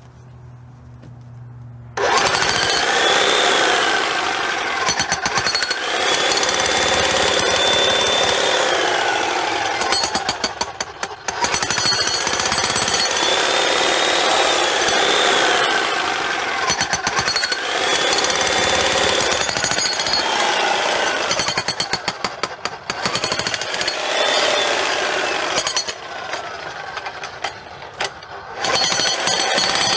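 Electric demolition jackhammer hammering continuously. It starts abruptly about two seconds in and eases off briefly about ten seconds in and again near the end.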